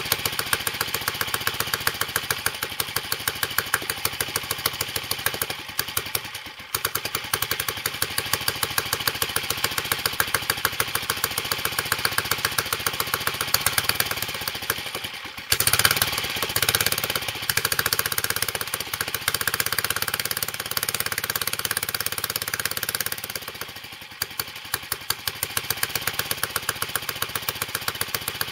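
1944 J.A.P. Model 3 small pushrod four-stroke stationary engine running on its first starts after restoration, with a quick, even exhaust beat and still untuned. The beat falters briefly three times, and for several seconds in the middle it picks up louder as the controls are worked.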